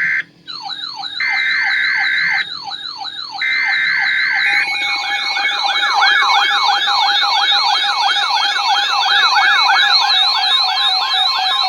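Emergency alert attention signal: a siren-like warble of falling tone sweeps repeating about three times a second. At first it is broken by blocks of steady high tone; from about five seconds in it runs without a break over a steady lower tone.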